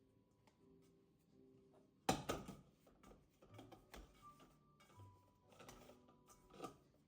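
Soft background music of sustained notes, with a few sharp clicks and knocks from something being handled, the loudest a quick cluster about two seconds in.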